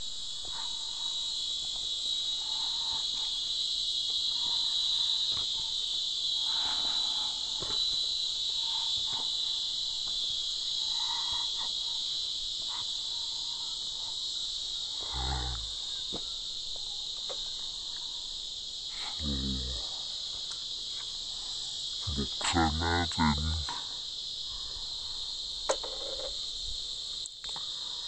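A steady, shrill chorus of insects, a high continuous buzz, with a few low thumps around the middle and a sharp click near the end.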